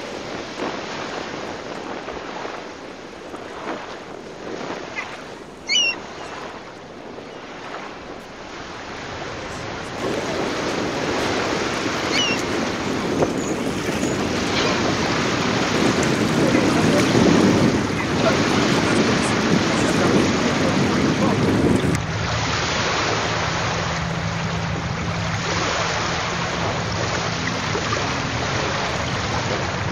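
Wind buffeting the microphone over water lapping against a floating platform, suddenly louder and deeper about a third of the way in; in the last third a steady low hum runs under it.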